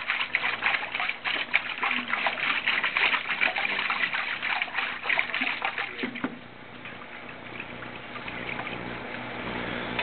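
Rinse water sloshing and trickling in a bucket as a bird hide is worked in it, busy and splashy at first, then settling to a softer trickle about six seconds in.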